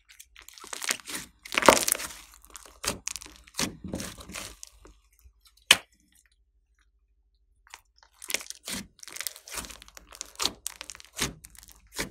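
Slime being squished and worked by hand, with irregular sticky crackles, pops and crunches, and a pause of about two seconds in the middle.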